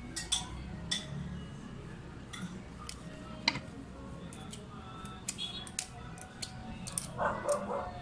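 Scattered light clicks and taps of a soldering iron, tools and small parts being handled on a wooden workbench, over a low steady hum. Near the end there is a short, louder noise.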